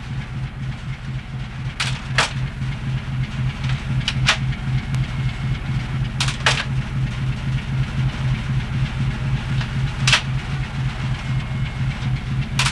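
A trawler's engine throbbing steadily below decks, a low rhythmic pulse that never lets up, with a few sharp clicks or knocks at irregular moments.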